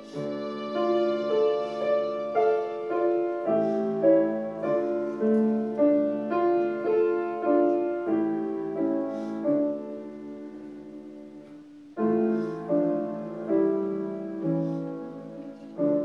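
Grand piano playing a slow hymn arrangement in even, struck chords about two a second. The playing dies away around ten seconds in, then resumes with a few more chords and a final chord near the end.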